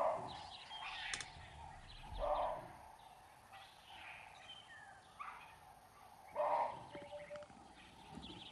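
Evening bush ambience: scattered short bird calls and chirps over a faint steady background, with louder short calls about two seconds in and again about six and a half seconds in.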